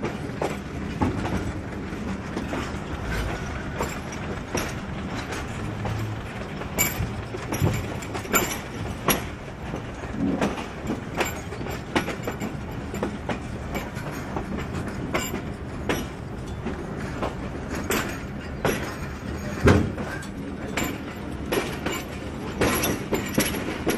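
Passenger train coaches rolling slowly, heard from on board: the wheels give irregular sharp clacks over rail joints and yard points above a steady low rumble and hum. There is one heavier clank a little past three-quarters of the way through.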